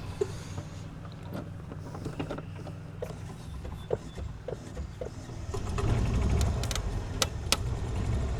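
Golf cart motor pulling on a tow strap tied to a hanging broken tree limb: the low running sound dies down, then picks up again about five and a half seconds in as the cart strains. Scattered sharp clicks and creaks run through the quieter stretch.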